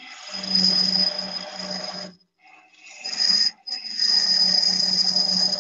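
Woodturning gouge cutting a small bat blank spinning on a wood lathe: a steady scraping cut that breaks off briefly about two seconds in and again for a moment around three and a half seconds, as the tool leaves and re-enters the wood.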